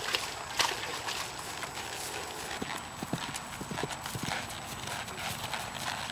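Hoofbeats of a ridden horse on dirt: a quick, irregular run of thuds and clicks as it moves at speed.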